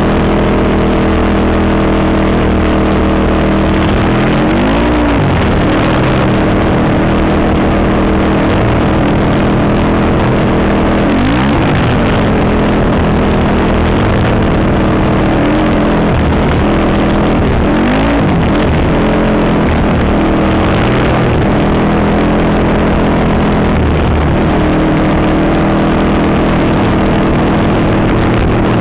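Honda TRX450R quad's single-cylinder four-stroke engine running under way. Its pitch drops and climbs back several times as the throttle is let off and reopened.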